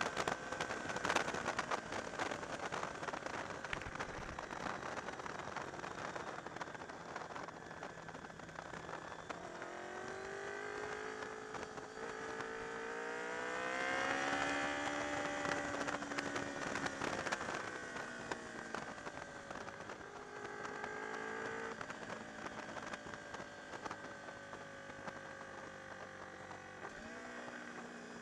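Honda VFR's V4 engine running at speed, its pitch climbing to a peak about halfway through and then easing off, with a brief rise near the end. Wind noise crackles over the microphone, heaviest in the first few seconds.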